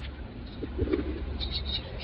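Birds calling: a low coo a little under a second in, then a quick run of short high chirps, over a steady low hum.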